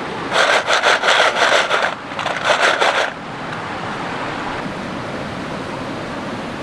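Quick rasping strokes in two runs, about three seconds in all with a short break near two seconds, over the steady rush of a mountain creek.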